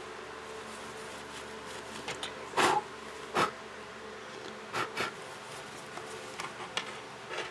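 Short rubbing scrapes of a cloth wiping dust off a phone's internal board, about six strokes, the loudest two in the first half, over a steady faint buzzing hum.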